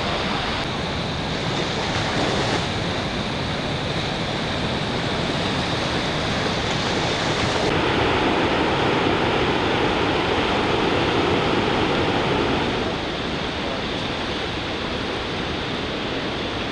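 Ocean surf breaking and washing up the beach, a steady rush that swells louder about eight seconds in and eases again near thirteen seconds.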